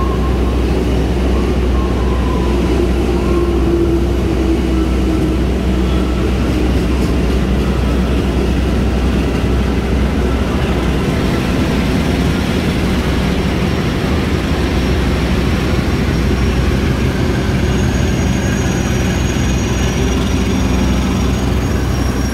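Trains running through a station: an electric commuter train passes, then a diesel locomotive hauling stainless-steel passenger coaches. A steady low engine drone and loud, continuous rail noise run throughout, with a faint high whine from about halfway.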